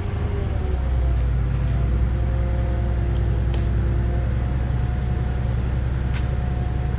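Steady low engine rumble, running without change, with a faint hum above it.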